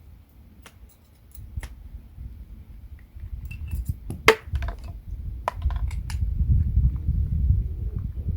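Small metal parts and tools being handled on a workbench: scattered light clicks and clinks, one sharper click about four seconds in, over low knocking and rubbing that gets louder toward the end.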